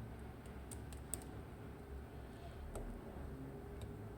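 Dimple lock pick working the pin stacks of a Mottura C55 dimple cylinder under clockwise tension: a few faint, scattered metallic clicks as pins are lifted and set.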